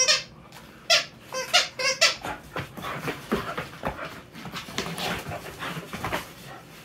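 Two bull terriers playing tug-of-war over a plush toy. A quick run of short, high squeaks fills the first two seconds, then comes a few seconds of scuffling and tugging noise.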